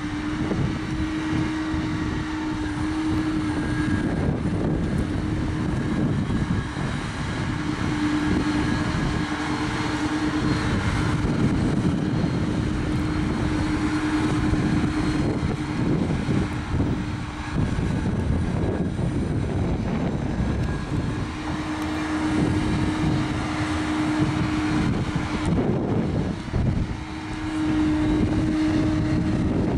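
John Deere 9560R tractor's diesel engine running steadily under load while it pulls Miskin DW25 dump wagons, with a steady hum that fades out for a few seconds twice in the second half.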